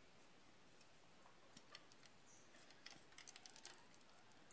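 Faint, light clicks and clinks, thickest about three seconds in: ice cubes knocking against a stainless steel mug and the wax-coated end of a wooden hoe handle as it is dipped into the ice water.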